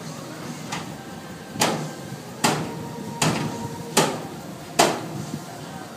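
Five sharp, evenly spaced blows, a little under a second apart, with a faint ring lingering between some of them.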